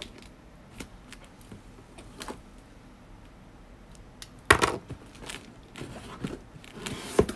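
A cardboard shipping box sealed with clear packing tape being handled and opened by hand: scattered light taps and scrapes, with two louder brief scrapes, one about four and a half seconds in and one near the end, as the tape gives and the flaps are pulled open.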